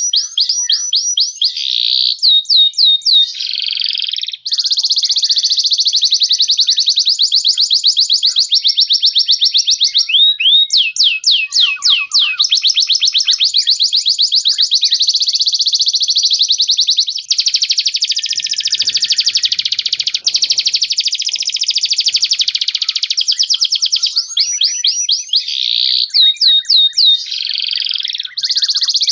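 Domestic canary singing a long, fast, high-pitched song of rapid trills and rolls with hardly a pause; a quick run of rising notes early on comes back near the end.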